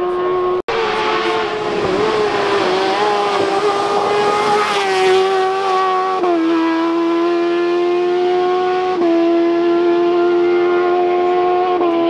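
Race buggy's engine running at high revs, a steady high-pitched drone whose pitch steps down about halfway through and up again about three-quarters through, as at gear changes. The sound drops out for an instant just after the start.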